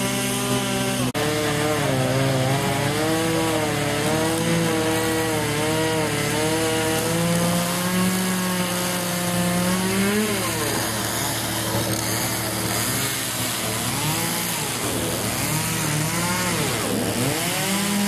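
Small gasoline chainsaw cutting through a felled palm trunk, its engine pitch wavering as it works under load, then revving up and down repeatedly in the second half.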